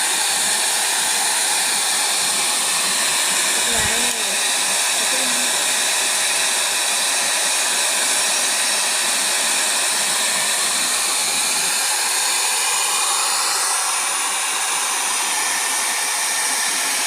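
Hair dryer blowing steadily, melting built-up ice in a refrigerator freezer to defrost it; a constant rushing hiss of air with no change in level.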